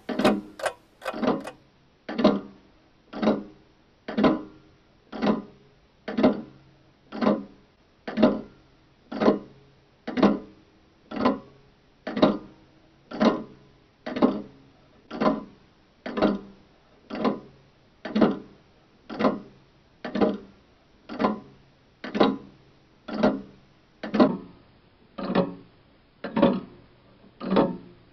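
Music: a single plucked-string note struck about once a second in a steady, clock-like pulse, each stroke dying away quickly, over a faint low drone. In the first second the strokes come quicker before settling into the slower beat.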